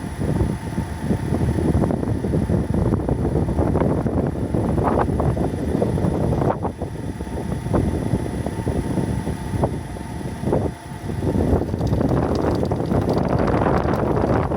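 Engine-room noise of a pre-facelift Nissan Serena e-POWER (C27): a continuous rumbling noise, uneven in level, with a brief dip a little before the end. It is the abnormal noise from the engine room.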